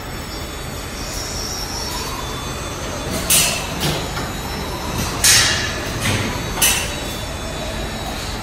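Machine sound of a rotating octagonal pharmaceutical blender drum: a steady mechanical rumble with squealing, hissing swishes that come and go several times in the middle.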